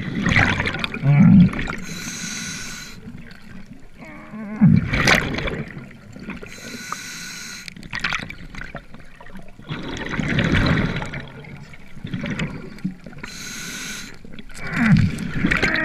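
Underwater sound of a scuba diver working over a speared fish: regulator breaths hissing about every five to six seconds, exhaled bubbles gurgling, with a few knocks and short low muffled moans.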